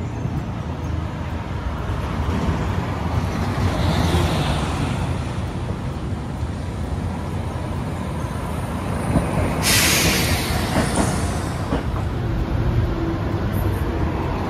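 Street traffic with buses and a streetcar, a steady low rumble with a vehicle passing about four seconds in. About ten seconds in, a short loud hiss of air brakes letting off air.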